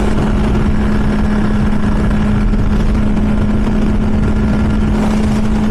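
Kawasaki Z900's inline-four engine running at a steady highway cruising speed, its note held level, under heavy wind rush on the microphone.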